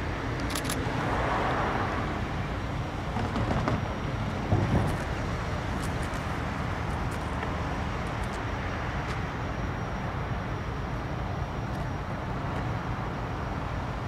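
Steady outdoor background of road traffic with a low rumble, and a brief louder sound about four and a half seconds in.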